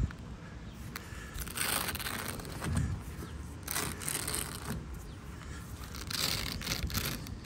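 Soft vinyl roll-up tonneau cover being rolled up by hand along the pickup bed rails: three rustling, scraping swishes about two seconds apart.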